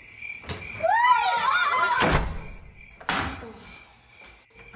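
A high, wavering cry, then the heavy thunk of a front door being slammed shut, followed a second later by a lighter knock.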